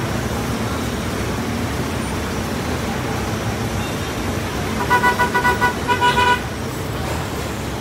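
Gridlocked city traffic: a steady wash of idling engines and road noise, with a vehicle horn tooted in a quick run of short blasts for over a second, about five seconds in.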